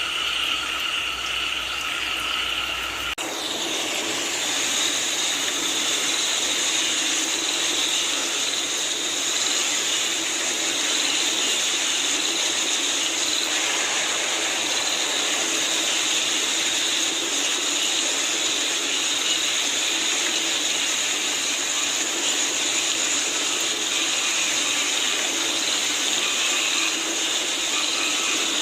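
Steady rain falling with a constant chorus of frogs calling. About three seconds in, the sound changes abruptly to a different, hissier mix of rain and calls.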